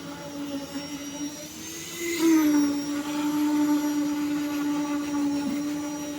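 Concrete poker vibrator running with a steady high-pitched hum. About two seconds in, its pitch briefly rises and settles back, and it gets louder.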